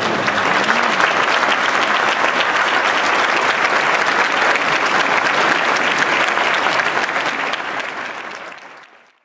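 Audience applauding, dense and steady, then dying away over the last second or so.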